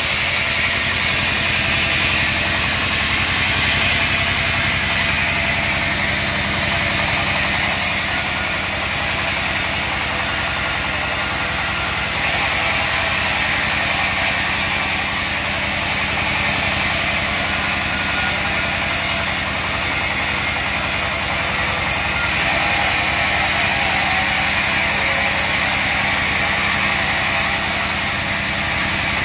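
Diesel engine driving a log band sawmill, running steadily at a constant speed.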